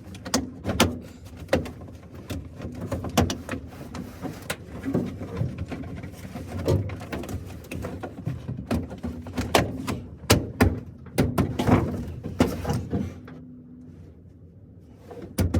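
Irregular knocks, clicks and clunks of truck interior parts being handled and fitted in the cab, with a faint steady hum underneath; the knocking eases off near the end.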